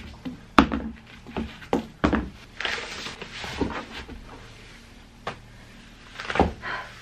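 Scattered knocks and thuds on a hardwood floor as foam slide sandals are kicked off and clothing is dropped and picked up, with short stretches of fabric rustling. The sharpest knock comes about half a second in, another loud one near the end.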